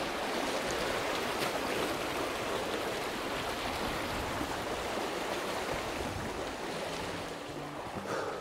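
Shallow river rapids rushing over rocks: a steady noise of fast water. Faint music comes in near the end.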